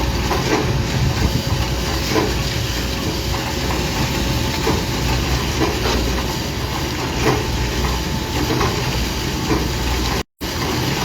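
Heavy diesel construction machinery running steadily, with a low rumble, a steady hum and scattered clicks and knocks. The sound cuts out for a moment near the end.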